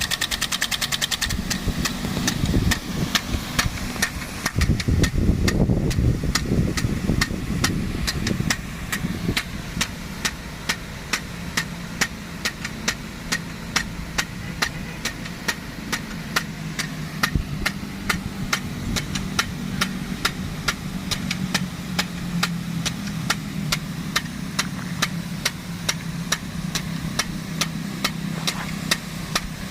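DN-50 big gun sprinkler clacking sharply and evenly, about three times a second, as its drive arm strikes, over the steady running of the engine-driven water pump. A heavier low rumble swells for several seconds near the start.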